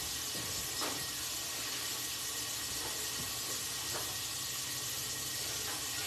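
Steady hiss of water running from a kitchen tap, with a couple of faint light clicks about one and four seconds in.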